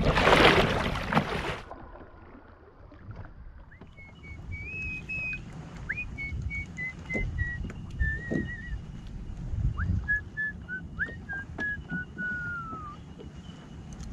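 A person whistling a slow tune of held notes in two falling phrases, the second ending in a downward slide. Under it runs a low rumble of wind and water with a few knocks. A loud rush of noise fills the first second and a half.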